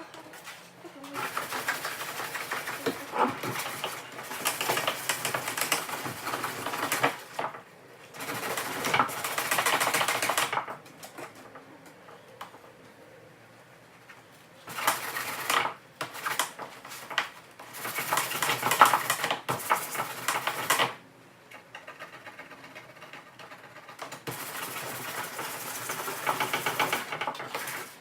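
Sandpaper sanding body filler smooth on a fiberglass front lip, in runs of rapid scraping strokes a few seconds long with short pauses between.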